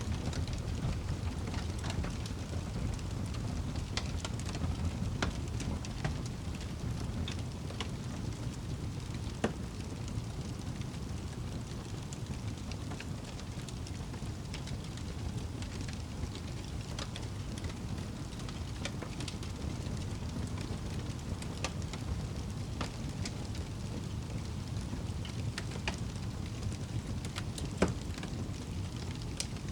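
Wood fire burning in a fireplace: a steady low rumble with scattered sharp crackles, and two louder pops, one about a third of the way in and one near the end.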